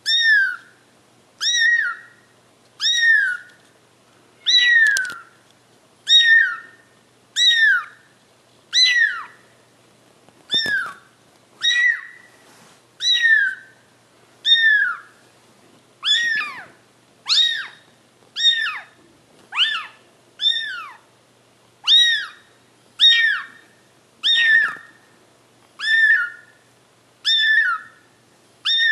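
A young kitten mewing over and over, about twenty short, high-pitched mews, one every second and a half or so, each dropping in pitch at its end.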